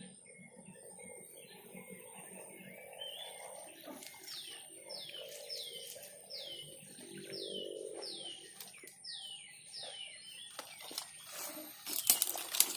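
A songbird repeating a clear downward-slurred call, about two a second for several seconds in the middle, over a steady high-pitched whine. Near the end a short burst of loud rattling clicks.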